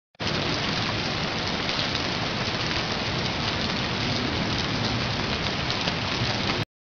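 A steady, rain-like hiss that cuts off abruptly near the end.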